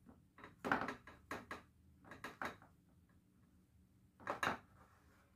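A few scattered knocks and scrapes from a square baking pan on the counter as dough is pressed and stretched up its sides by hand. The sharpest knock comes in the first second, with another about four and a half seconds in.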